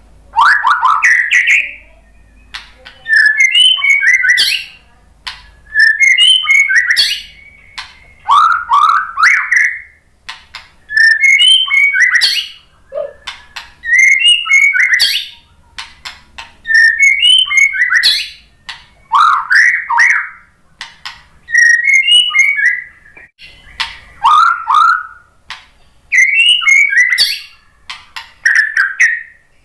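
White-rumped shama singing: short, varied phrases of clear whistles mixed with sharp clicking notes, a new phrase about every two seconds with brief pauses between.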